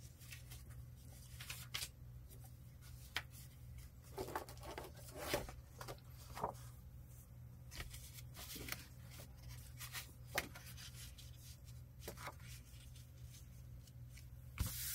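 Loose paper pieces being shuffled and rustled through by hand, with scattered light taps and rubs.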